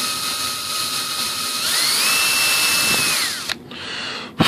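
Cordless drill running at low speed as it reams a touch of material from a screw hole in a model plane's motor mount, so that a cross-threading bolt can line up. Its whine holds steady, steps up in pitch as it speeds up about one and a half seconds in, then winds down and stops about a second before the end, followed by a short knock.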